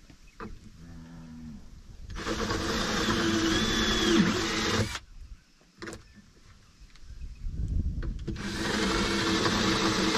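Cordless drill running in two bursts of about three seconds each, one about two seconds in and one near the end, while fixing a bracket to the wing of a lick roller tub; its motor pitch dips briefly in the first burst as it bites.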